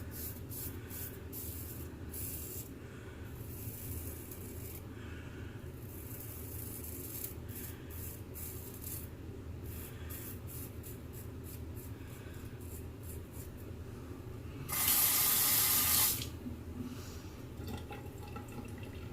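Short scratchy strokes of a straight-razor shave over stubble, then a water tap runs into the sink for about a second and a half, near the end.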